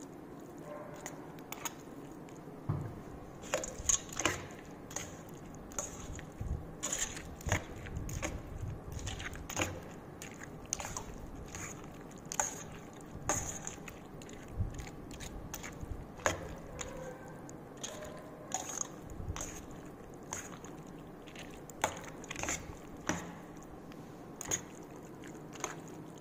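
Cooked rice, chopped boiled egg and dry dog-food kibble being mixed by hand in a stainless steel bowl: soft squishing with irregular clicks and scrapes against the bowl.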